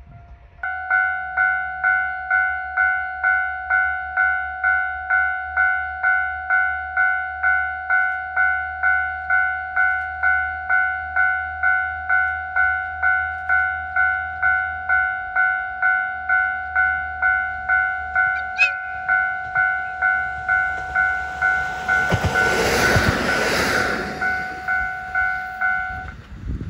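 Railway level-crossing warning bell ringing an even two-tone ding about twice a second; it starts suddenly and stops just before the end. Over it, a KiHa 40 diesel railcar passes close by, its engine and wheel noise swelling to the loudest part about 22 to 24 seconds in.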